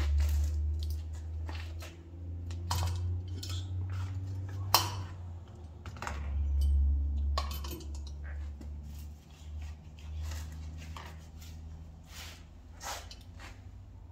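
Irregular metallic clicks and clinks of valve parts and a hand tool being worked on an aluminium LS cylinder head during valve assembly, with one sharper click about five seconds in. A steady low rumble runs underneath.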